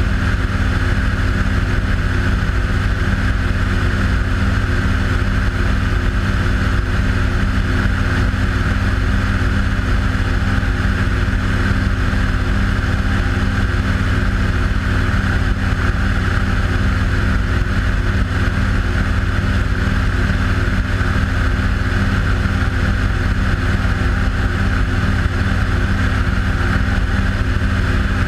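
Steady drone of a light aircraft's engine heard on board, running at a constant pitch and level with no change in power.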